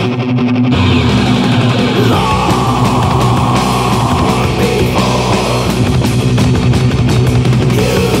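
Loud rock music with electric guitar and drums, running steadily throughout.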